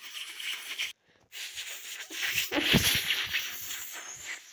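Explosion-style blast effect: a hiss that breaks off about a second in, then a longer hiss with a low, falling rumble near the middle.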